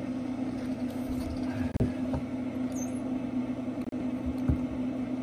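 Steady hum from a Traeger pellet grill's fan running, with a couple of short clunks from a hand-pumped hydraulic crimping tool squeezing a swage fitting onto stainless steel cable.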